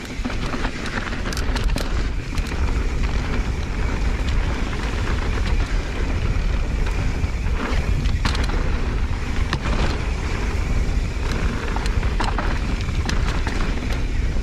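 Mountain bike descending dry dirt singletrack at speed: steady wind rumble on the microphone over the rolling noise of knobby tyres on dirt, with scattered sharp clicks and rattles from the bike over bumps.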